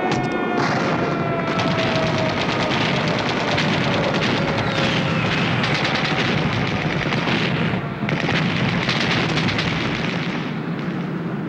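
Battle sound effects: dense, continuous gunfire and artillery fire, with slow falling whistles in the first half. It eases off slightly near the end.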